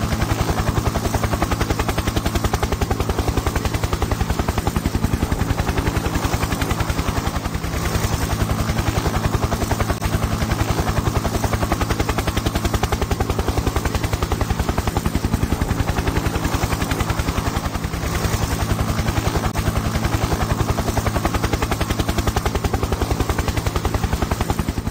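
Helicopter sound effect: a fast, steady rotor chop over a low engine hum, unchanging in level, cutting off suddenly near the end.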